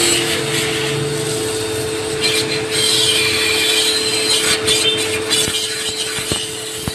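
Stick-welding arc burning on a welding rod: a steady, crackling hiss with a steady hum underneath.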